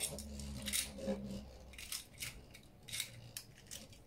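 Beyblade spinning tops battling in a plastic stadium: short sharp clicks and scrapes as they strike each other and the stadium wall, over a low whir that fades out about two seconds in.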